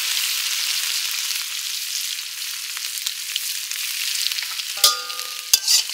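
Hot oil sizzling steadily in a pan with crushed garlic just added. Near the end a short metallic clink rings out, followed by a couple of sharp knocks.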